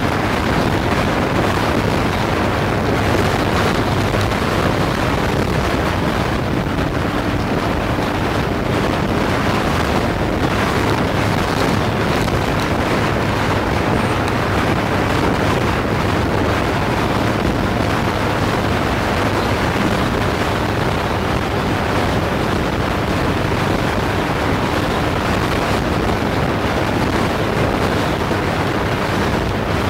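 Steady wind rush on the microphone over the drone of a motorcycle riding at speed.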